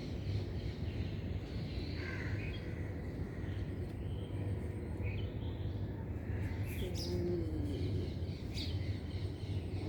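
Birds chirping now and then in short, scattered calls over a steady low background hum.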